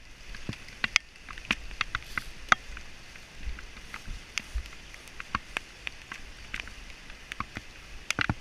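Steady hiss of rain with scattered sharp ticks and snaps at uneven intervals, some loud, some faint.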